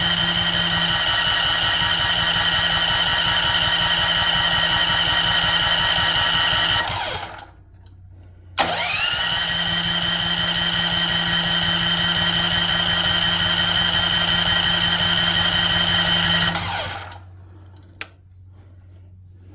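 Electric starter cranking a Champion generator's small engine in two long tries, about seven and eight seconds each, with a steady whine and even pulsing. A click starts the second try and its pitch rises as it spins up. The engine does not catch.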